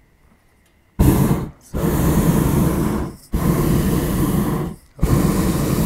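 Hot air balloon's propane burner firing in four loud blasts, starting about a second in, each one to one and a half seconds long with short breaks between.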